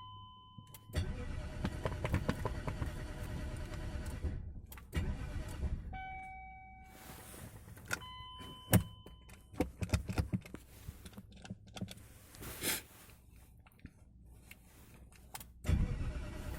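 BMW E39 540i's 4.4-litre M62 V8 being cranked by the starter in two stretches without firing, with the dashboard's electronic warning chimes sounding three times and sharp clicks from the key and switches. Cranking without catching is the sign of the engine getting no fuel injection.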